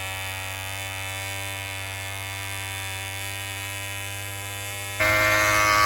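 Small engine on concrete finishing equipment running at a steady high speed with a constant buzzing pitch; it gets suddenly much louder about five seconds in.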